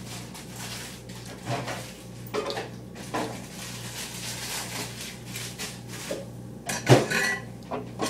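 Dishes and cutlery clinking and clattering in a few scattered knocks, the loudest about seven seconds in, over a steady low hum.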